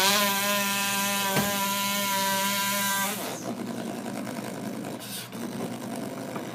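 A boy imitating a chainsaw with his voice: a buzzing, motor-like tone that rises at the start and then holds steady for about three seconds. It then drops to quieter rough noise.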